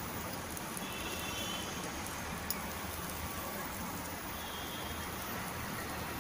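Boiled eggs frying in a little oil in a pan, a steady sizzle, with a single light click about two and a half seconds in.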